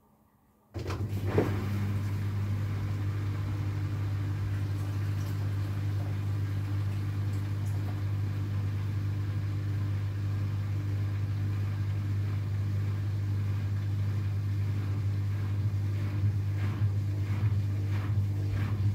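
AEG Lavamat washing machine's drain pump switching on about a second in and humming steadily as it pumps out the water, with a little gurgling near the end.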